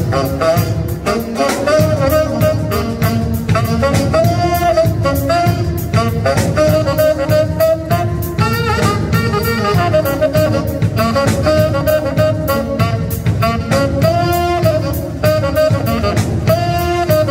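Live jazz band: a saxophone plays a melody over a drum kit keeping a steady beat with cymbals.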